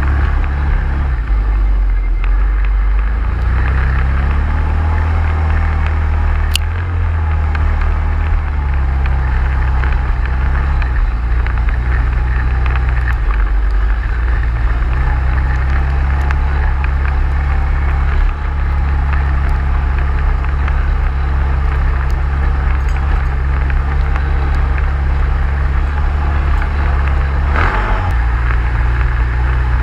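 An ATV's engine running while riding, with the revs shifting: rising a few seconds in, dipping briefly near the middle and changing again near the end.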